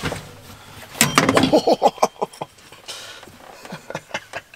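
A quick run of sharp clicks and knocks about a second in, and a few lighter ones near the end, as a John Deere G5 display is handled against its mounting bracket.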